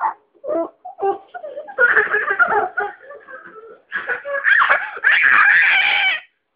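Small child laughing in repeated bursts, the longest and loudest stretch near the end.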